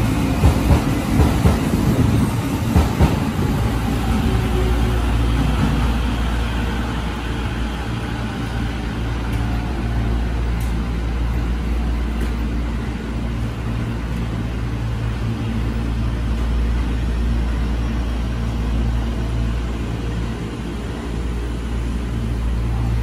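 Tobu Urban Park Line electric train pulling out of the platform: wheels clatter over the rail joints for the first few seconds, then its rumble and motor whine fade as it leaves. A steady low hum stays behind.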